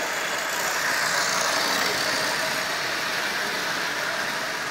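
Toy electric train pulling eight cars around three-rail tinplate track: the steady whir of its motor and the rumble of wheels on the rails, swelling a little about a second in as the cars pass close.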